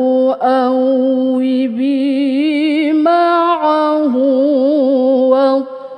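A woman's unaccompanied voice reciting the Quran in the melodic tilawah style. She draws out long held notes with wavering ornaments, and her voice drops away for a breath near the end.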